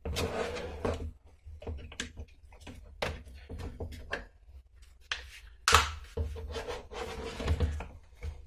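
Hard plastic parts of a Stihl MS 170/180 chainsaw's rear handle being handled and pressed together as the trigger cover is fitted: an irregular string of clicks, knocks and rubbing, with the loudest knock about two-thirds of the way through.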